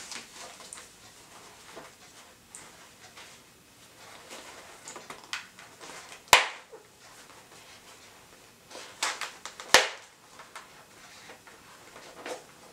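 Handling noises from a motorcycle helmet being worked on by hand: soft rustles and small knocks, with two sharp clicks, one about six seconds in and another near ten seconds after a short run of knocks.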